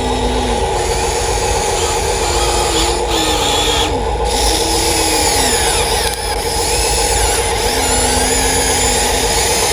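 Radio-controlled model excavator working: a steady electric motor and pump whine, with a lower tone that rises and falls as the load on the machine changes.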